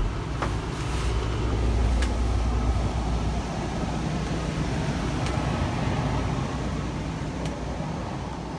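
Steady low rumble of a building's ventilation or air handling, with a few faint clicks.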